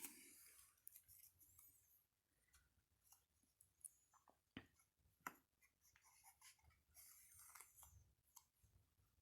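Faint scratching and rubbing of fingers pressing camo cloth tape down onto the rifle, with two small sharp clicks about halfway through.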